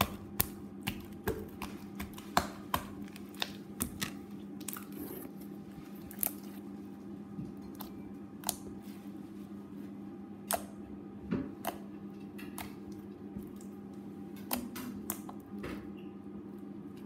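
Thick glitter slime being kneaded, poked and stretched by hand, giving irregular sharp clicks and pops as air bubbles in it burst, over a steady low hum.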